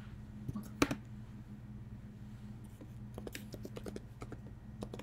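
Light clicks and taps of food and small utensils being handled on a wooden cutting board, with one sharper knock about a second in, over a steady low hum.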